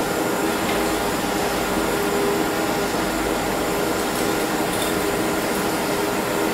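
A propane torch burning steadily, its flame preheating a cast iron exhaust manifold before nickel-rod welding, over a steady machine hum. There are no clicks or knocks.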